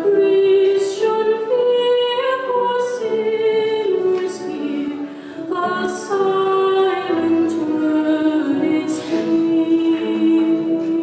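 A woman singing solo, holding long notes that step up and down in pitch from phrase to phrase.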